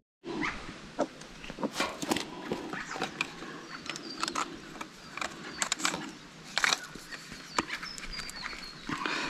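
Plastic poly pipe fittings being handled and pushed together: a string of irregular sharp clicks, knocks and scrapes, with a faint high call about three-quarters of the way through.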